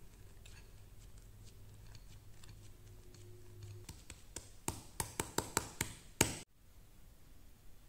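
Faint scraping of a silicone spatula pressing grated potato into a stainless mesh strainer, then a quick run of about nine sharp metallic taps in two seconds on the strainer over a ceramic bowl, the last tap the loudest.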